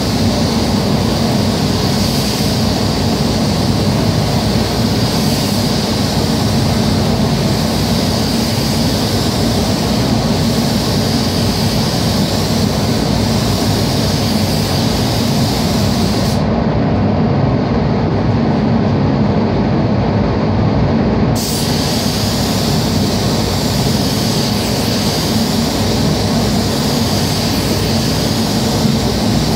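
Steady rumble of a paint booth's ventilation fans, with the high hiss of a compressed-air paint spray gun over it. The hiss stops for about five seconds past the middle while the rumble carries on.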